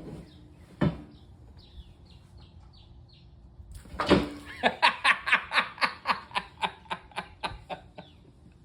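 A person bursting into laughter about four seconds in, a long run of rapid ha-ha-ha pulses that fades away, after a single sharp knock about a second in.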